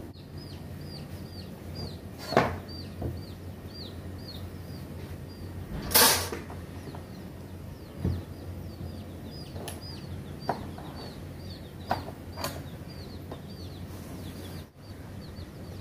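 Wood and a metal bar clamp knocking and clicking as a thin wooden strip is clamped onto a bending form: two sharp knocks about two and six seconds in, lighter clicks after. A bird cheeps in short falling notes, about two a second, behind it.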